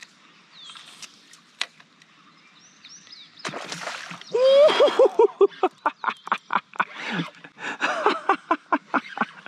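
A bass strikes a topwater swimbait with a splash about three and a half seconds in. A man's excited cry follows, then a long run of giggling laughter.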